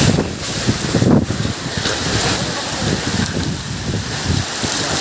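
Heavy rain pouring down in strong, gusty wind, with the wind buffeting the microphone in irregular low rumbles.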